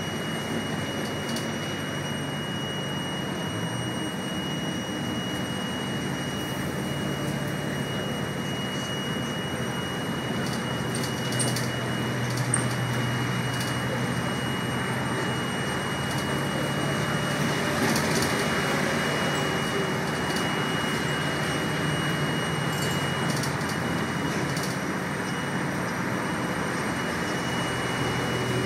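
Steady engine hum and road noise heard from on board a moving bus, the low engine note getting stronger about eleven seconds in. A constant high-pitched whine sits over it.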